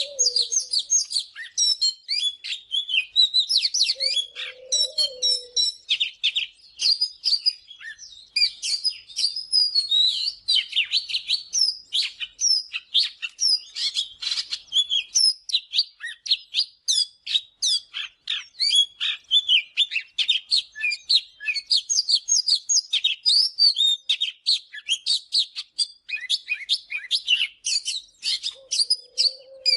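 Oriental magpie-robin singing a continuous, rapid run of varied high whistles and chirps. A soft low note sounds about four seconds in and again near the end.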